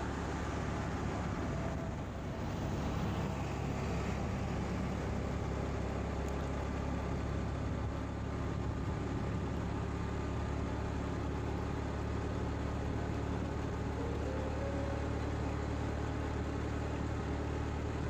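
Motorcycle running at a steady speed, its engine hum under a steady rush of wind and road noise.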